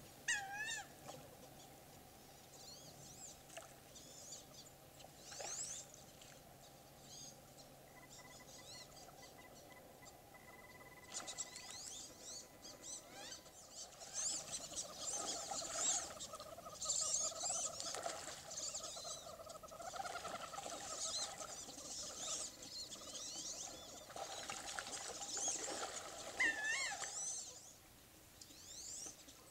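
Wood ducks calling: many thin, squeaky, rising whistles, overlapping and busiest in the second half.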